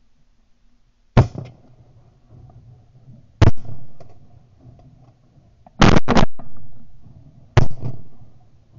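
Shotgun blasts at flying ducks: five shots a few seconds apart, two of them fired almost together about six seconds in, each followed by a short rolling echo.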